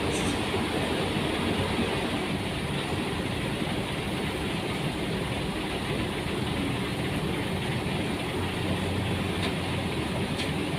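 Heavy machinery running steadily, most likely the diesel engine of the Zoomlion ZE135 excavator as it is loaded, an even engine noise with no change.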